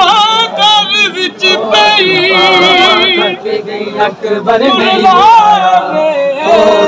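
Men singing a Punjabi noha, a Shia mourning lament, in long, wavering notes.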